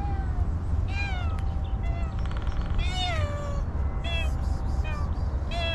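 A hungry stray tortoiseshell-tabby cat meowing repeatedly, about five or six calls that each fall in pitch, one of them drawn out, over a steady low rumble.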